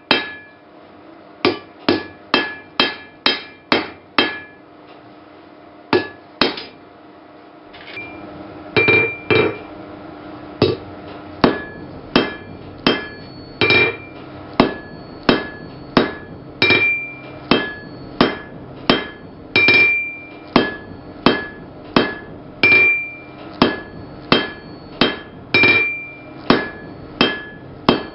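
Blacksmith's hammer striking hot steel on an anvil, about two blows a second, each leaving a bright ringing tone from the anvil. The blows thin out to a couple of strikes a few seconds in, then resume in a steady rhythm.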